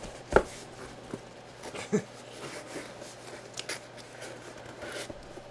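Handling noise from a cardboard jersey box: scattered knocks and rustles, the sharpest knock about a third of a second in, with smaller ones around two seconds and near the end.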